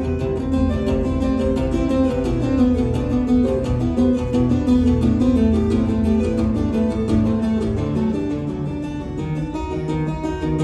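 Solo acoustic guitar played with two-handed tapping on the fretboard, a quick run of melody notes over ringing bass notes.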